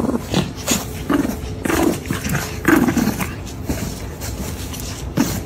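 A pet animal making a string of short grumbling vocal sounds, several in a row, as it cuddles with another pet.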